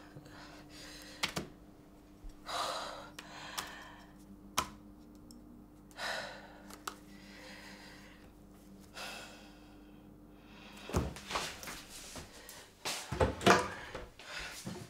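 Kitchen wall cupboard door being handled and opened, several knocks and thunks near the end. Before that, a few small clicks and soft rustles over a faint steady hum that stops about eleven seconds in.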